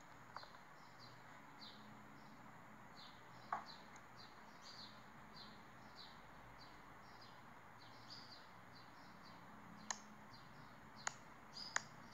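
Faint, sharp single clicks of a cucujo click beetle (Pyrophorus noctilucus) snapping while squeezed between fingers, its defensive click. The loudest comes about three and a half seconds in and three more come near the end. Steady high chirping, a few short falling chirps a second, runs underneath.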